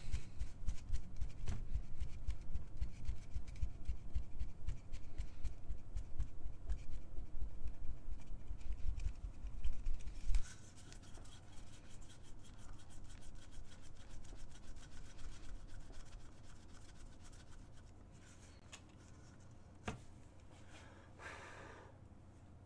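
Rubbing and scraping of a stretched canvas being handled and turned over, dense and loud for about the first ten seconds. The handling then drops to faint scuffs, with a single click and a short scrape near the end.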